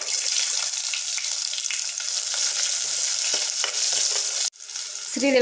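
Sliced shallots and garlic cloves sizzling loudly as they drop into hot oil in a clay pot, then stirred with a ladle. The sizzle cuts off suddenly about four and a half seconds in, and a fainter sizzle follows.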